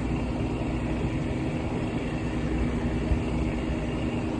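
Boat engine machinery running steadily: a constant low hum with unchanging tones and no rise or fall in level.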